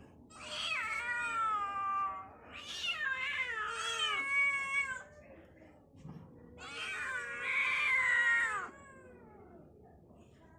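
Kitten meowing: three long, drawn-out meows, each sliding down in pitch, with short pauses between them.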